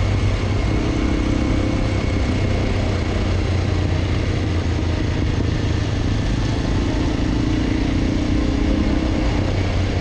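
Honda NX250 single-cylinder four-stroke motorcycle engine running at a steady cruise, heard from the rider's position over a haze of wind and tyre noise on a gravel road.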